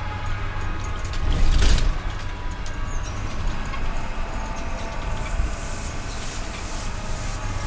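Passenger bus running, heard from inside the cabin: a steady low engine and road rumble with rattling, briefly swelling louder about one and a half seconds in.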